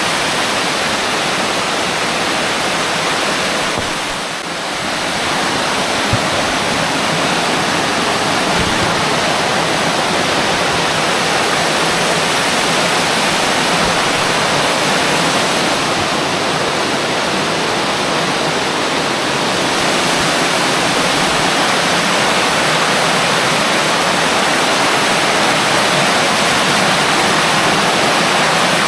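Rain-swollen cave stream cascading over sandstone ledges: a steady, loud rush of water, running high after heavy rain.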